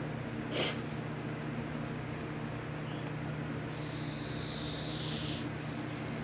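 Pencil drawing on a paper floor plan: a short scratchy stroke about half a second in, then two long, high squeaky strokes, the second sliding down in pitch, over a steady low room hum.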